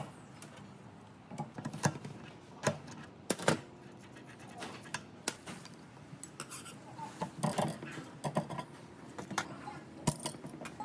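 Metal hand tools (pliers, wrench, a pointed bar) clinking and scraping against an old bench grinder's steel shaft, wheel nut and grinding wheel as it is dismantled: scattered, irregular clicks and clanks, the sharpest a little after three seconds in and a busy cluster around seven to eight seconds.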